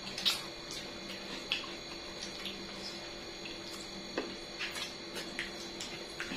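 Close-miked mouth sounds of a person eating: wet chewing and smacking, heard as irregular short clicks and squelches.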